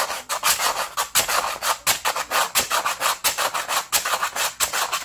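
Sandpaper rubbed rapidly back and forth on a bicycle: a continuous run of raspy scraping strokes, about four or five a second.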